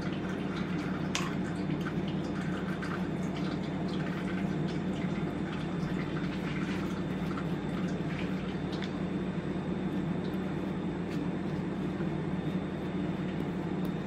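Steady low hum in a kitchen, with faint scattered ticks and soft wet dabs of a pastry brush spreading orange marmalade glaze over baked buns, and a small click about a second in.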